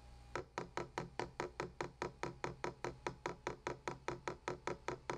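A lone pair of hands clapping in a steady, even rhythm, about five claps a second, fairly faint.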